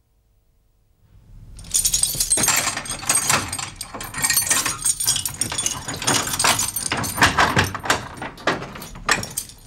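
A bunch of metal keys jangling and clinking, starting after about a second and a half of near silence. The clatter continues to the end, typical of a jailer's key ring.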